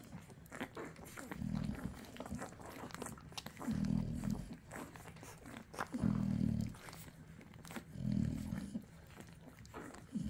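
Nano American bully puppies nursing on their mother: low, pitched dog grunts about every two seconds, with many small clicking, smacking sounds in between.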